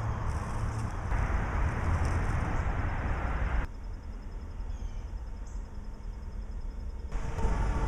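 Outdoor background noise: a steady rumbling hiss with distant traffic, which drops abruptly about three and a half seconds in and rises again near the end.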